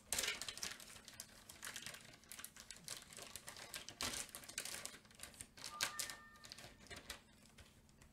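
Quick, irregular small plastic clicks and taps with some rustling as a diamond painting tool kit is handled and its pieces are taken out.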